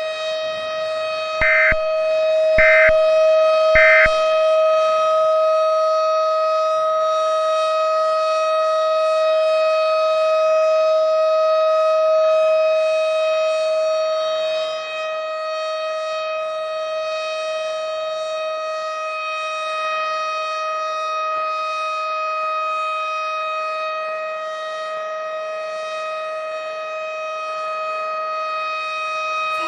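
Civil defense siren sounding a steady, unwavering tone as a tornado warning signal. Three short, higher-pitched beeps about a second apart sound over it near the start.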